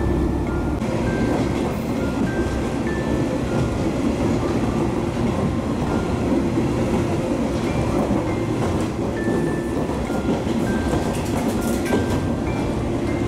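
A KiHa 47 diesel railcar running along the line, its engine and wheels heard from inside the passenger car as a steady low rumble. A light melody of background music plays over it.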